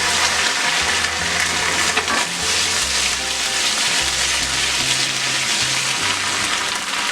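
Garlic and ginger paste sizzling steadily in hot oil with whole spices in a kadai. Low background music runs underneath.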